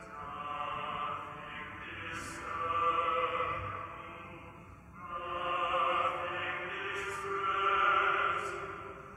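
Choral singing of a slow, sustained chant in two long phrases, with the sung words audible.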